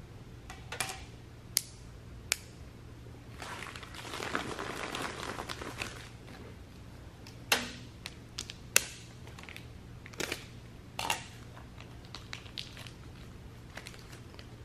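A small plastic bag crinkling for about two seconds, with scattered sharp clicks and taps of small metal parts and tools being handled before and after it.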